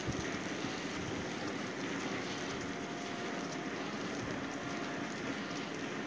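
Steady rumble and hiss of a railway station platform beside a standing passenger train, even throughout with no distinct events.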